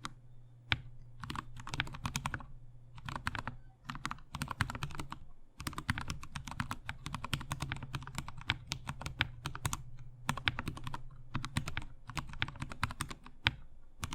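Typing on a GK64 mechanical keyboard with lubed Gateron Brown tactile switches, lubed and clipped stabilisers and foam inside the case: runs of quick keystrokes in bursts, with short pauses between them.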